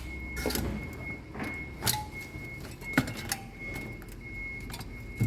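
Scattered clicks and knocks of small parts and tools being handled, about half a dozen, over a low steady hum, with a faint high tone that cuts in and out.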